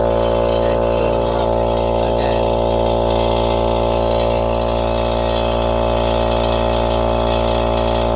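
Air compressor running steadily with an unbroken, even drone.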